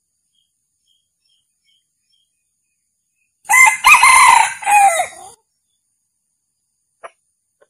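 Male red junglefowl crowing once, about three and a half seconds in: a short crow of about two seconds, broken into three parts.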